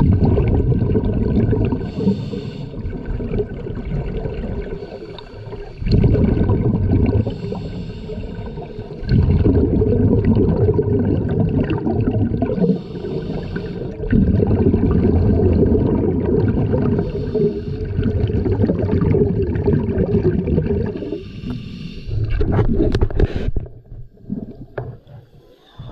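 Scuba diver breathing underwater through a Hog regulator. Each exhale sends a rumble of bubbles out of the regulator for a few seconds, and each short inhale between them brings a brief hiss. The breathing gives way to a few sharp clicks and quieter water near the end.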